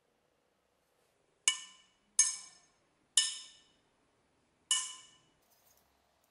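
Four sharp metallic clinks, the rusty steel knife blade being struck, each one ringing with the same bright tone and dying away within about half a second.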